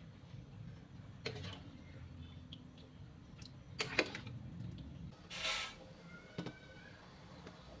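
A metal spatula knocks and clinks a few times against a wok while coconut-milk curry is stirred. The loudest, sharpest knock comes about four seconds in, and a short rustling hiss about five and a half seconds in comes as seasoning is poured from a glass jar. A low, steady hum runs underneath.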